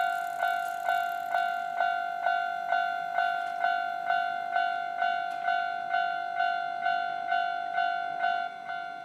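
Japanese railway level crossing warning bell ringing steadily, about two strikes a second, each strike dying away before the next. It signals that the crossing is closing for an approaching train.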